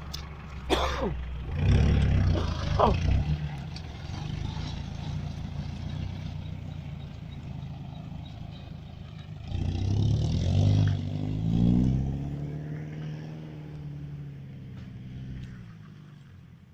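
Mitsubishi Pajero's engine running under load off-road, with a few knocks in the first three seconds. About ten seconds in it revs up hard, then eases off and fades toward the end.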